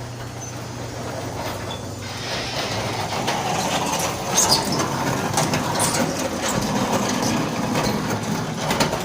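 Garage door running on worn-out rollers: a rough, continuous metal-rubbing-on-metal grinding and rattling full of clicks, getting louder after about two seconds. It cuts off abruptly at the end.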